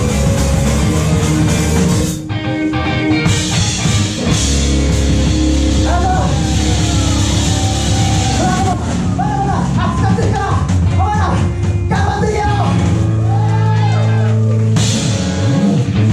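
Live rock band playing loud, fast punk rock with guitars and drums and a singer's voice through the middle. The band thins out briefly about two seconds in.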